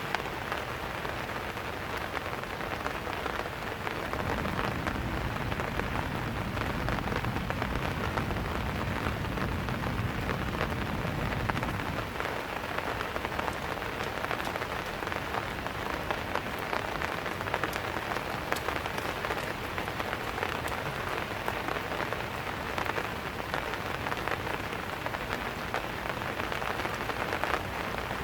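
Steady rain falling, a dense patter with individual drops tapping on surfaces. A low rumble sits under the rain from about four seconds in until about twelve seconds in.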